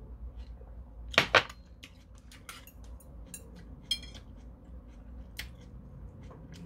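Two sharp clacks of tableware about a second in, then light clicks of metal chopsticks against a porcelain plate, one tap near the middle ringing briefly.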